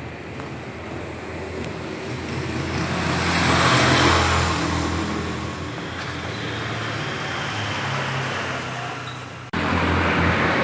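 A car running, with engine and road noise swelling up to a peak about four seconds in and easing off again; near the end it cuts suddenly to a louder steady hum.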